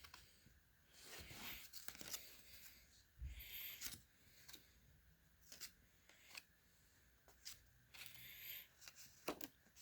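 Faint handling of a set of playing cards, with small clicks and rustles as they are shown one by one, and a few soft swells of heavy breathing close to the microphone.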